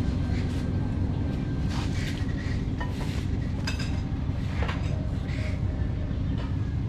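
Steel shovels scraping and digging into loose dirt, a few separate scrapes standing out, over a steady low rumble.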